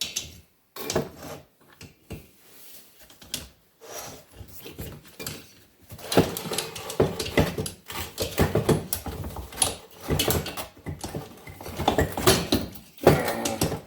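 Metal tools and parts knocking and clinking against a VW Type 1 aluminium cylinder head as a valve spring compressor is worked to pull the valve springs. The knocks come sparsely at first, then turn into a busy run of rattling and clinking for the last several seconds.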